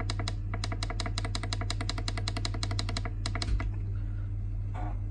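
A Saswell digital thermostat beeping rapidly, about six short beeps a second, as its up button is pressed repeatedly to raise the set temperature; the beeping stops about three and a half seconds in, followed by a single knock. A steady low hum runs underneath.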